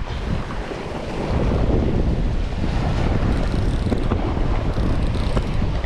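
Wind buffeting the microphone over surf washing against the rocky shore, a steady rushing noise that grows a little louder about a second and a half in.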